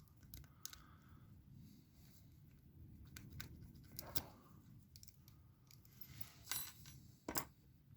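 Metal lock-picking tools working a cheap padlock: faint scrapes and scattered small clicks, with a louder cluster of clicks late on and one sharp click just after.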